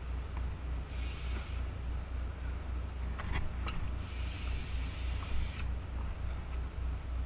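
A boat engine idling with a steady low drone, while water splashes and hisses beside the hull in two spells, about a second in and again from about four to five and a half seconds, with a few light knocks in between.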